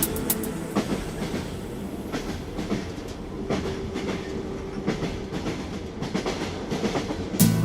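Train running along the track: a steady rumble with the wheels clicking irregularly over rail joints. Music comes back in just before the end.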